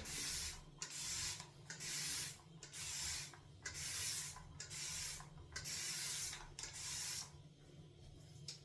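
Boar-bristle shaving brush (Semogue 830) working wet shaving soap into a lather: about eight rhythmic wet swishing strokes, roughly one a second, that stop near the end.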